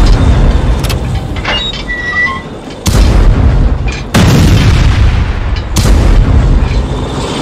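Dubbed cannon-fire sound effects for a toy LEGO tank: four heavy booms, one at the very start and then about three, four and six seconds in, each trailing off in a long low rumble.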